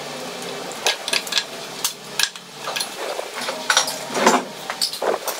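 Metal spoons and forks clinking and scraping against ceramic plates and soup bowls during a meal, in scattered sharp clicks, with a busier clatter about four seconds in.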